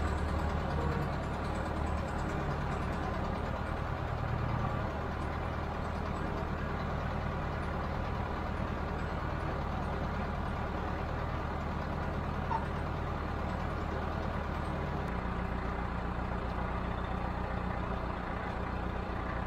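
Broderson truck-mounted crane's engine running steadily, holding a suspended load. Its note changes suddenly about three quarters of the way through.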